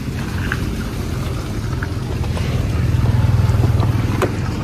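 Car engine running with a low, steady rumble that grows louder about three seconds in; a sharp click near the end.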